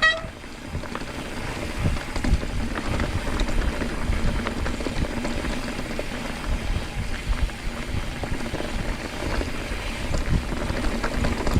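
Mountain bike rolling over a dirt trail: a steady rumble of tyres on the ground, with scattered knocks and rattles from the bike over bumps.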